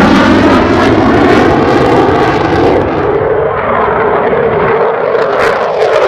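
F-15C Eagle jet fighter's twin turbofan engines making a loud low flyby. The roar passes, and its high hiss dies away from about halfway through as the jet moves off.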